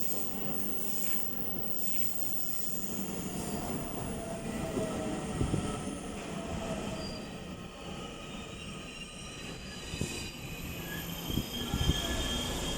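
Taiwan Railways EMU900 electric commuter train pulling into an underground station platform and slowing: a steady rumble of wheels on rail with motor whine, a few sharper knocks, and high squealing tones from the wheels and brakes that get louder near the end as it comes to a stop.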